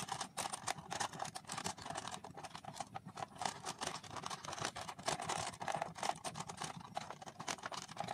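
Small, irregular clicks and taps of a bare wire loop being threaded through the screw terminals of switches on a plastic switch board, the wire and fingers knocking against the switch fittings and plastic.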